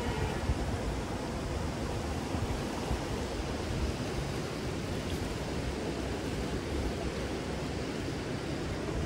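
Steady rushing of a river's flowing water, an even noise with no breaks.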